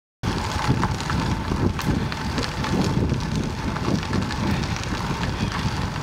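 Wind buffeting the microphone of a camera on a moving bicycle, over the hiss and light crackle of tyres rolling on a crushed-stone gravel trail.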